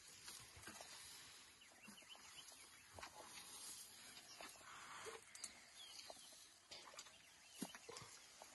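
Faint rustling with scattered soft snaps and clicks from African elephants feeding in dry grass.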